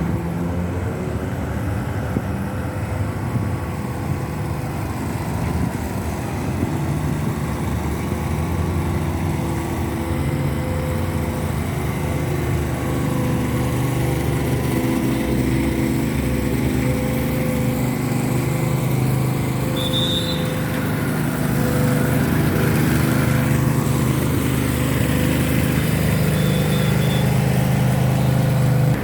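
An engine running steadily with a low hum, getting a little louder from about two-thirds of the way in.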